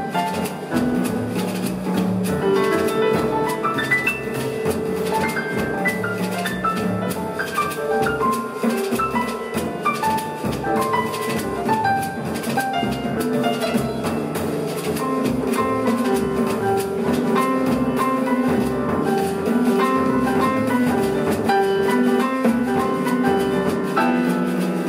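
Live jazz from piano, double bass and drum kit: the piano plays lines of quick notes over held low bass notes, with cymbals and drums keeping time throughout.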